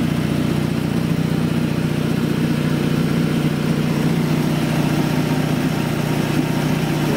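A 1968 Quincy Model 230 twin-cylinder, single-stage air compressor, belt-driven by a 1946 7.5 hp Wagner repulsion-start induction-run motor, running steadily under load while pumping up its tank. It makes an even, loud hum with a fast pulsing beat.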